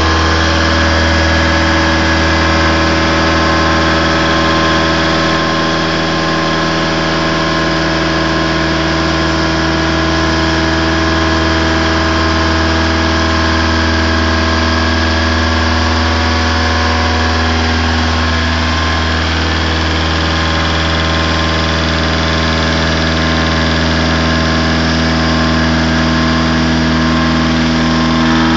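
Bragonzi T130 CNC boring mill running under cut, contour-milling a hole in welded steel with a 50 mm milling cutter at 1250 rpm. It makes a loud, steady machine hum with several steady tones.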